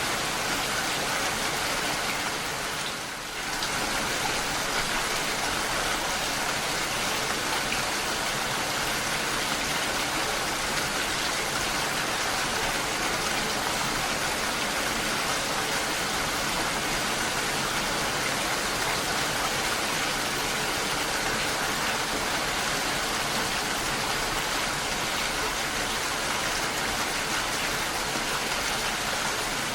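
Steady rainfall: an even hiss, briefly quieter about three seconds in.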